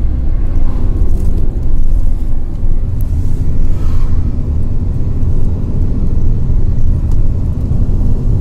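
Vehicle engine and tyre rumble heard from inside the cabin while driving, a steady low drone.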